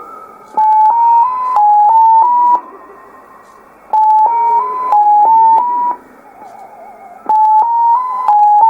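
Unidentified shortwave signal on 9485 kHz heard in upper sideband through a Sony ICF-2001D receiver. It is a burst of six short steady tones, each about a third of a second, stepping up and down between a few close pitches. The burst repeats about every three and a half seconds, three times, with receiver hiss in between.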